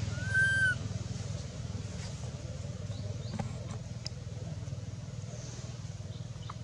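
Baby long-tailed macaque giving one short, high-pitched squeal that rises and falls, about half a second long, just after the start. A low steady rumble runs underneath, with a few faint clicks.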